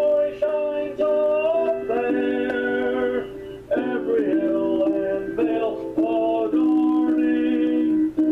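A man singing a hymn in long, held notes.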